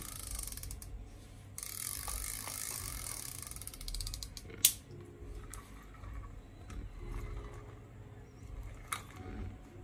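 Japanese-made Daiwa spinning reel being cranked by hand: its gears whirr with fast ratchet-like ticking in two runs in the first few seconds. A sharp click comes about halfway through, and another near the end.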